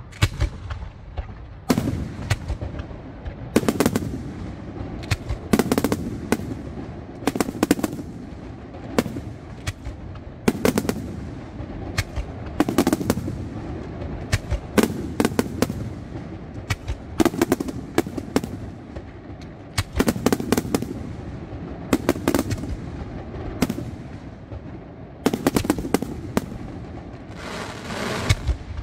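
Aerial fireworks display: shells bursting overhead in clusters of sharp bangs every second or two, each followed by a rumbling echo, with a hiss near the end.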